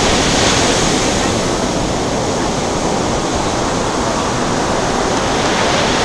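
Steady wash of surf and wind noise from the beach, with no firework bang; the shell's burst has not reached the microphone yet.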